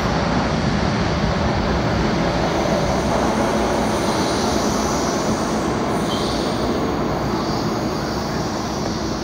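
MTR Rotem K-Train electric multiple unit running away from the platform into the tunnel, with steady wheel-on-rail and running noise that eases off slightly near the end as the train pulls away.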